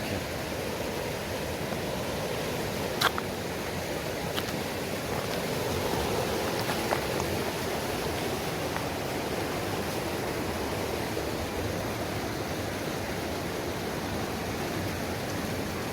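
Mountain stream rushing fast over rocks, running high and quick after rain. Two short clicks sound over it, about three and four seconds in.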